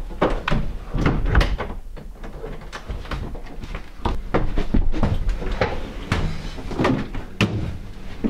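A quick, irregular run of thumps and knocks from doors and hurried footsteps, someone rushing through a house and scrambling up to a window.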